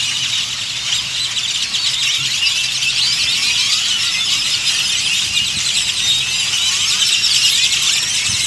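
A large flock of birds calling all at once: a dense, continuous chorus of many overlapping short, shrill calls.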